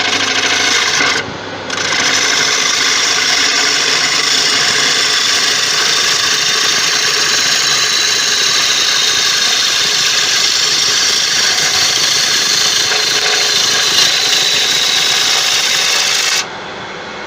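Turning tool cutting into a large spinning tiger wood blank on a Laguna 1836 wood lathe during a finishing cut: a steady scraping hiss with a brief break about a second in. It stops sharply near the end as the tool leaves the wood.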